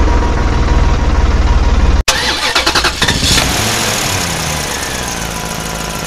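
Diesel tractor engine running with a fast, low chug. About two seconds in it cuts off abruptly and a louder engine sound takes over, then slowly fades and falls in pitch.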